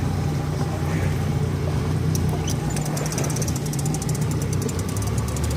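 Boat engine running steadily with a low drone, with stretches of rapid fine ticking over it and a couple of brief squeaks about two seconds in.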